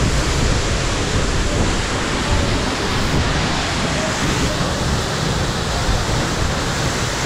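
Tall plunge waterfall crashing into its pool close by: a loud, steady roar of falling water.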